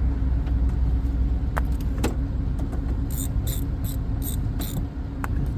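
A ratchet on a 10mm socket clicking in a quick run of about six clicks, with a few separate metallic clicks earlier, as a door-handle bolt is worked loose. Under it runs a steady low rumble with a constant hum.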